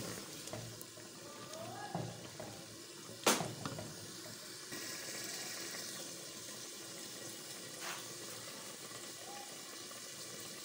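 Heart and lung pieces simmering in spiced water in a clay handi, a steady bubbling hiss, while a wooden spoon stirs through them. A sharp knock about three seconds in, with a few lighter taps of the spoon elsewhere.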